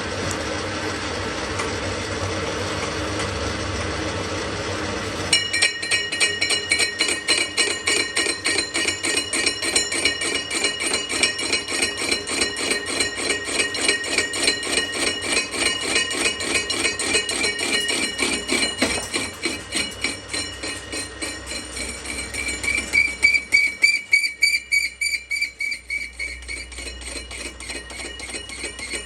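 Steady machine noise for about five seconds, then a hammer striking steel over and over, about three blows a second, with the metal ringing after each blow. The blows ease off partway through and come back loud near the end.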